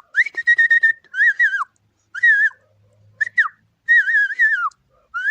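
A person whistling to call a dog, in about six short phrases. Some are held and some warble, and several drop in pitch at the end.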